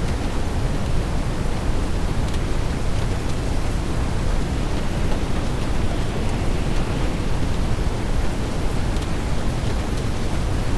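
Storm noise of wind and rain: a steady rushing, heaviest in the low end, with a few faint ticks.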